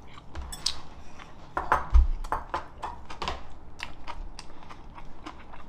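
Table sounds of a meal: chewing, with chopsticks and a spoon clicking against plates and bowls in many short, sharp taps. A heavier low thump comes about two seconds in, like something set down on the table.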